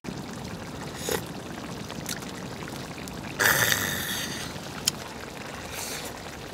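Steady rain falling on a tent, with a few small clicks of utensils on a bowl. About three and a half seconds in, a loud satisfied "kha" exhale from a person eating.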